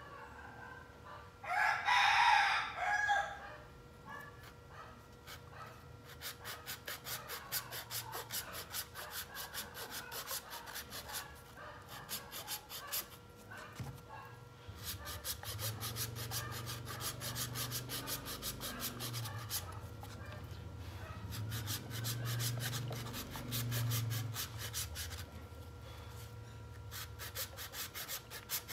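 A hand-held hacksaw blade sawing through the hard shell of a trimmed young coconut, in quick back-and-forth strokes that come in runs of several seconds with short pauses. A rooster crows once, loudly, about two seconds in.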